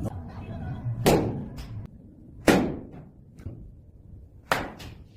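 Sharp cracks of a baseball bat hitting balls, each fading quickly: one about a second in, one midway, and two close together near the end.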